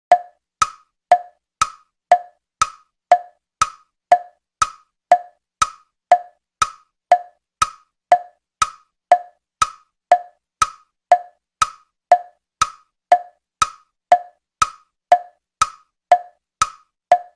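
Wood-block tick-tock sound effect: dry, evenly spaced knocks about two a second, like a ticking clock.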